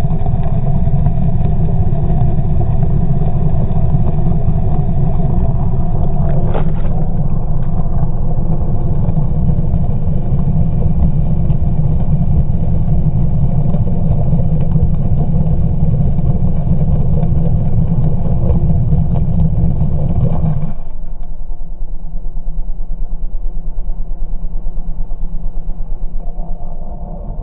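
Selva XSR 40 outboard motor heard underwater through a camera housing, muffled, with the propeller spinning fast in gear and exhaust gas streaming out of the hub. There is a single knock about six seconds in. About three quarters of the way through, the sound drops suddenly to a slow, pulsing idle in gear.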